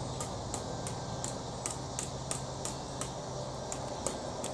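Cessna 172 piston engine and propeller droning steadily in the distance, with a regular run of sharp, high ticks about three a second over it.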